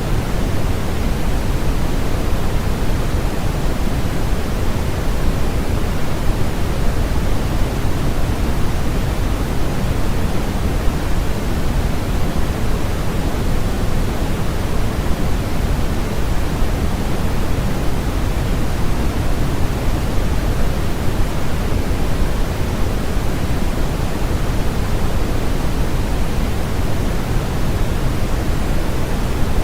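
Steady, unchanging synthetic noise for sleep, an even hiss that is heavier in the low end than the high, like pink noise rather than flat white noise.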